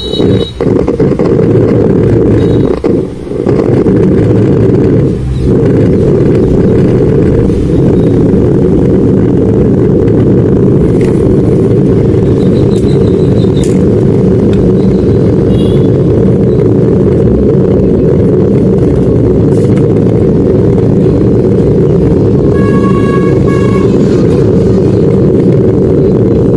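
Home theatre subwoofer giving out a loud, continuous low rumbling noise with no music playing: the sound fault under repair.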